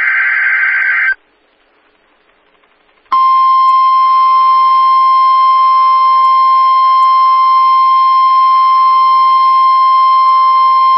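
NOAA Weather Radio weekly test alert: the last burst of the digital SAME header, a harsh warbling data screech, cuts off about a second in. After about two seconds of quiet, the steady 1050 Hz warning alarm tone starts, a single loud unbroken beep-like tone.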